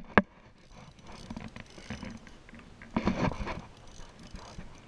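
Shimano Baitrunner spinning reel worked during the fight with a fish: faint mechanical ticking and handling noise, with a sharp click just after the start and a louder rustling patch about three seconds in.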